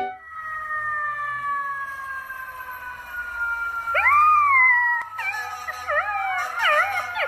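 Golden retriever puppy howling: a long, slowly falling tone for the first few seconds, then about four seconds in a loud howl that rises and falls, followed by a run of shorter, wavering howls.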